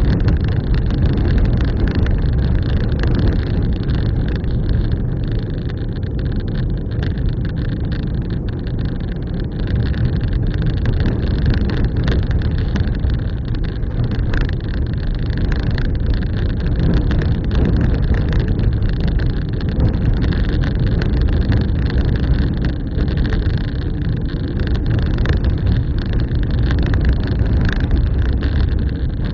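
Car on the move: steady engine and tyre rumble, heavy in the low end, with small ticks and rattles running through it.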